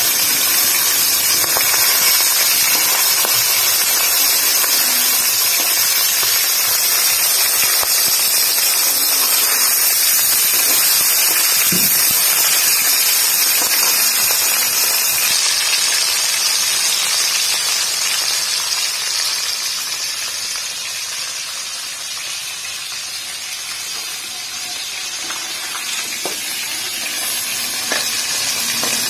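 Pieces of magur (walking catfish) sizzling as they fry in hot oil in a kadhai: a steady, loud frying hiss that eases somewhat for a few seconds past the middle.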